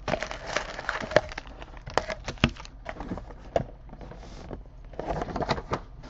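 Crinkling of foil trading-card pack wrappers, with sharp clicks and taps of packs and cards being handled on a table, busiest in the first second and again near the end.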